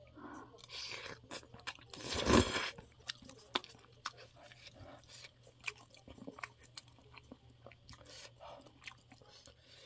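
A person chewing a mouthful of spicy chicken feet and noodles close to the microphone, with crunching and many small wet mouth clicks. There is one louder burst about two seconds in.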